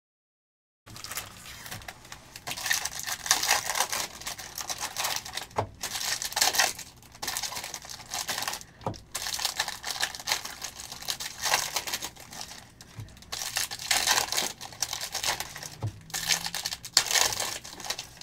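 Foil trading-card pack wrappers crinkling and tearing as Panini Select football packs are ripped open by hand, in irregular rustling bursts starting about a second in.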